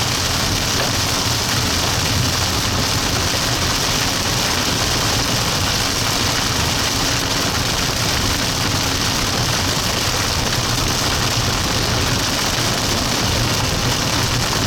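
Steady rain beating on a moving car, heard from inside the cabin, with a low engine and road rumble underneath.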